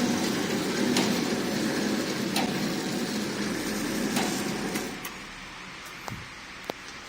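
Incense-stick counting and packing machine running with a steady mechanical hum and a sharp clack about every second and a half, stopping about five seconds in, followed by a few light clicks.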